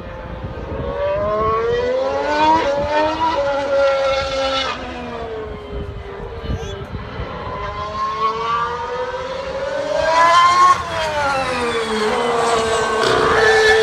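Formula One cars' 1.6-litre turbocharged V6 hybrid engines running on track, the engine note climbing as a car accelerates and sliding down as it slows, with sudden drops in pitch about five and eleven seconds in.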